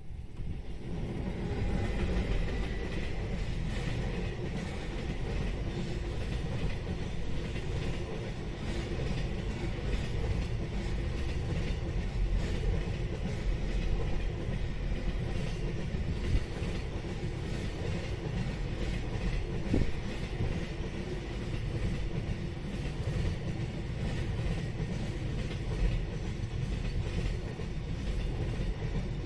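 A train running past on the Sanyo Main Line: a steady rumble with many sharp wheel clicks over the rail joints.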